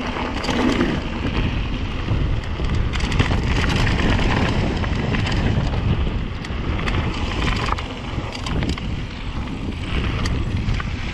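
Rocky Mountain Slayer mountain bike descending a trail: wind rushing over the helmet- or bike-mounted GoPro microphone and tyres rolling over dirt and gravel, with frequent small clicks and rattles from the bike.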